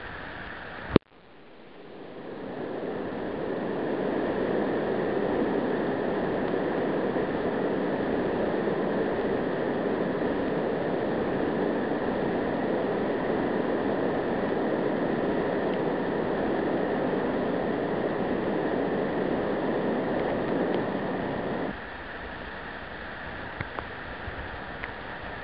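Turbulent whitewater rushing steadily at a power station's cooling-water outlet. A sharp click comes about a second in; the rush then grows louder over a couple of seconds and drops suddenly to a lower level near the end.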